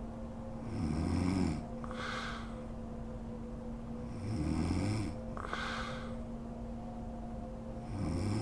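A sleeping woman snoring: three low snores about three and a half seconds apart, the last near the end, each followed by a softer hissing breath.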